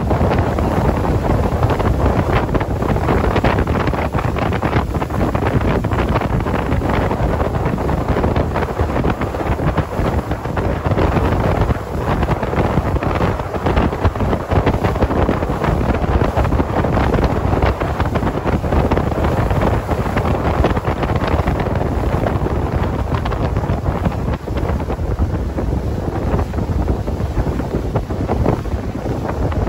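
Steady wind buffeting the microphone on an open speedboat under way, over the boat's engine and the rush of water along the hull.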